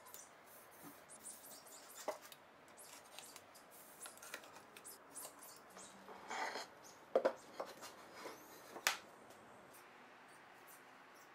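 Small handling noises of thin veneered panels being moved and pressed on a wooden workbench: light scrapes, rustles and taps, with a few sharper knocks in the second half.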